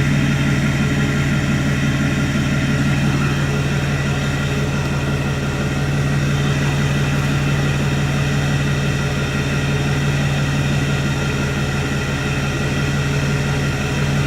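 Ford 6.4L Powerstroke V8 diesel idling steadily through a 5-inch downpipe-back dual exhaust with no muffler.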